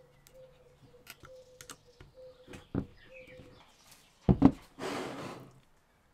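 Metal-and-plastic CNC minimill axis unit handled on a wooden tabletop: a few light clicks from the Allen key and parts, then two sharp knocks a little past four seconds in as the unit is set down, followed by a short scrape on the wood.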